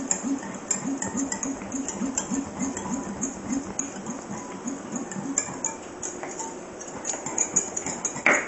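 Wire whisk beating tomato powder into hot water in a glass bowl, scraping and clinking against the glass at about three strokes a second. There is one sharper knock near the end.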